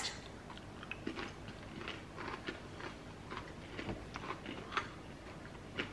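Faint crunching and chewing of small yogurt-coated micro-pretzels: a scatter of small crisp clicks.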